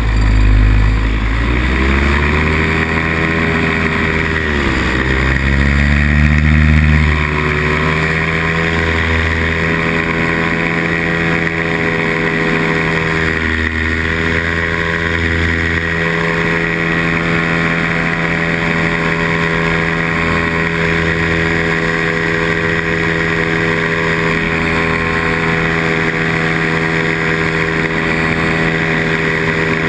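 Nirvana Rodeo paramotor's two-stroke engine and propeller running in flight. Engine speed dips about four seconds in and comes back up, then holds steady.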